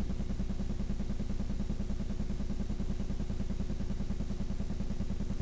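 A motor running steadily: a low, even rumble with a fast regular pulse.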